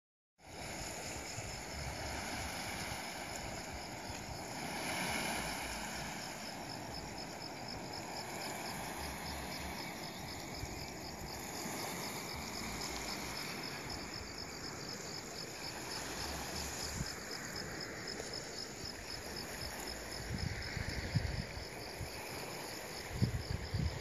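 Crickets chirping in a steady, even rhythm over a soft wash of calm sea lapping on a pebble beach. A few low bumps come in near the end.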